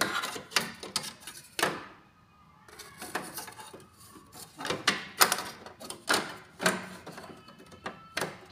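Hard plastic side cover panel of an HP LaserJet M525 printer knocking and clicking against the printer's metal frame as it is handled and worked into its clips. The knocks and rattles come irregularly, with a short pause about two seconds in.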